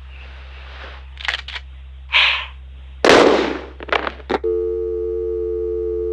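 A woman's desperate laughter in a few short, breathy bursts, then about two-thirds of the way in a continuous electronic beep sets in and holds as one steady tone, a telephone-style line tone over a low background drone.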